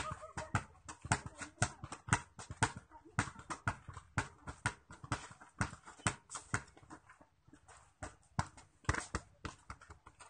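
A ball being tapped with the feet and knocked on a concrete floor in freestyle footwork: quick, irregular knocks, about three or four a second, stopping about nine seconds in.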